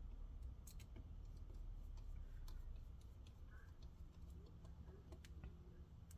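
Faint, irregular small clicks of a precision screwdriver and screws on a laptop cooling fan's housing as the fan screws are driven back in, over a low steady hum.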